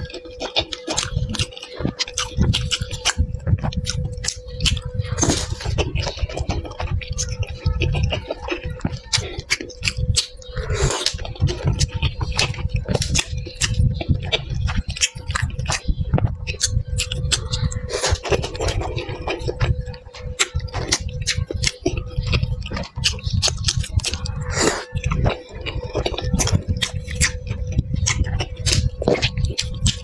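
Close-miked eating sounds of a person chewing soup dumplings in chili oil: dense wet mouth clicks and smacks throughout, over a faint steady hum.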